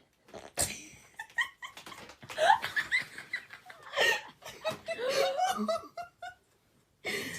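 A person laughing and giggling in several short bursts, among light clicks and knocks.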